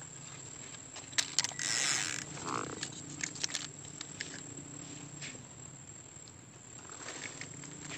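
Quiet outdoor background with a steady high-pitched whine and a faint low hum, broken by a few sharp clicks a little over a second in and a brief rustle just before two seconds in.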